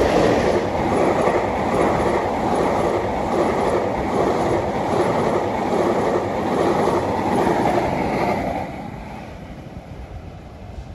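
Senja Utama Yogyakarta passenger train passing close by, with the steady rushing noise of its cars and wheels on the rails. The noise falls away about eight and a half seconds in as the last cars go past.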